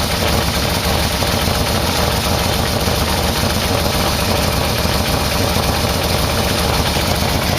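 Yamaha VMax V4 engine idling steadily while it warms up.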